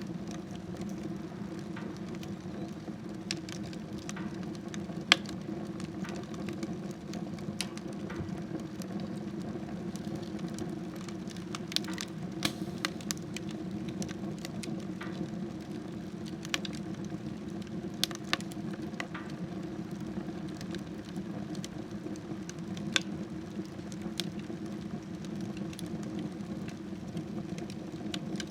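Wood fire burning in a smokeless wood stove: a steady low rushing of the fire, with scattered sharp crackles and pops from the burning wood, the loudest about five seconds in.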